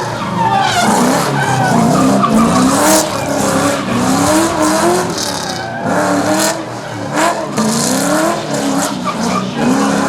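Holden Commodore's 6.0-litre LS2 V8 revving hard and falling back over and over, with tyres skidding and squealing as the car drifts.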